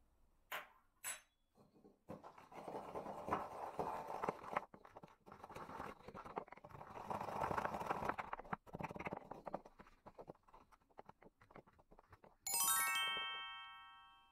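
Wooden pestle crushing caraway seeds in a wooden mortar: two light taps, then about ten seconds of gritty crunching and scraping. Near the end a single bright ringing note sounds and fades away.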